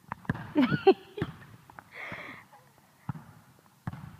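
A soccer ball being kicked and bouncing, and sneakers running on a hardwood gym floor: a flurry of sharp knocks and high squeaks in the first second, then a scuff and scattered thuds.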